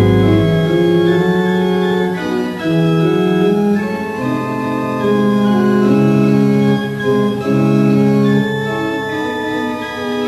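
Organ music: held chords over a moving bass line, the notes changing about every second.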